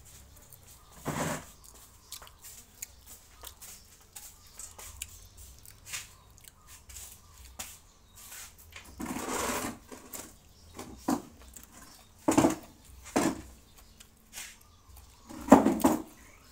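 A person eating with their hands: close chewing and mouth sounds with scattered light clicks, and a few louder short bursts in the second half.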